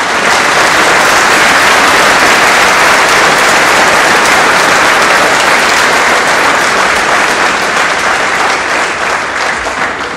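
A large congregation applauding, a dense steady clapping that starts to die away near the end.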